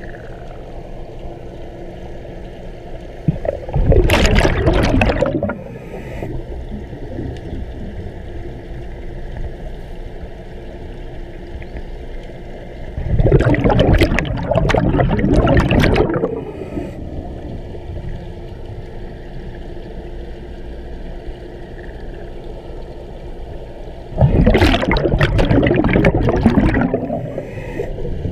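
Scuba diver's exhaled air bubbling out of his regulator, heard underwater through a head-mounted GoPro housing: three bubbling bursts about ten seconds apart, each lasting two to three seconds, over a steady low hum.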